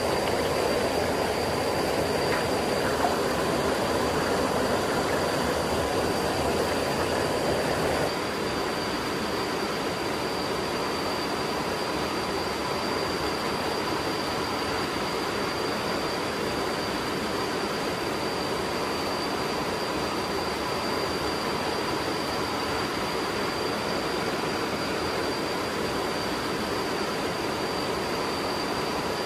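Steady rushing of a shallow rocky stream and small waterfall, with a thin steady high-pitched tone running through it; a little quieter from about eight seconds in.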